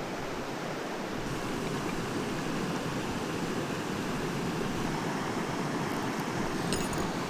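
Mountain stream water rushing, a steady even noise, with a few faint ticks near the end.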